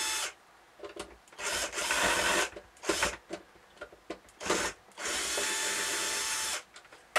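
Cordless drill-driver backing screws out of a Vacuflush toilet's plastic pedal cover, running in several short bursts with pauses between them, the longest burst near the end.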